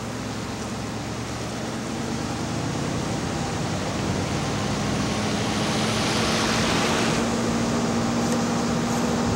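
Steady vehicle engine hum and road noise from a slowly moving vehicle, growing a little louder, with a brief rushing hiss about six seconds in.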